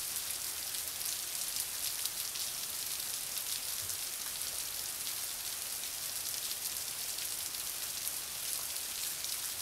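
Heavy thunderstorm rain falling steadily, a dense, even hiss of drops striking pavement, parked cars and leaves.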